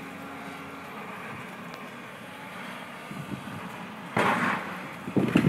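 Hydraulic excavator demolishing a brick building: a steady engine drone, then about four seconds in a sudden loud crash, followed near the end by irregular crunching and crashing as rubble breaks and falls.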